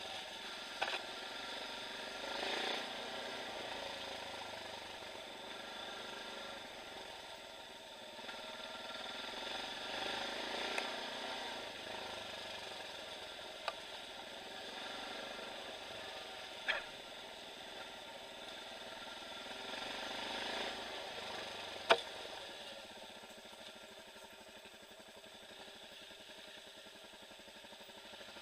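Off-road dirt bike engines running steadily at low trail speed, with a few sharp knocks along the way, the loudest about three-quarters of the way through. The engine sound drops a little near the end.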